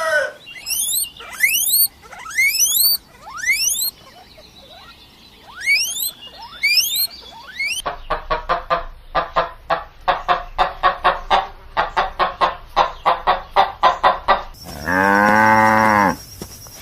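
A series of animal calls. First comes a run of short, sharply rising high-pitched calls, repeated in groups. Then a fast pulsed call of about three pulses a second goes on for several seconds. Near the end a cow moos once, for about a second and a half.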